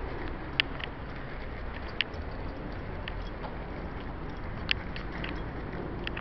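Steady background noise of a street heard on the move, broken by a handful of sharp clicks at uneven gaps of about a second.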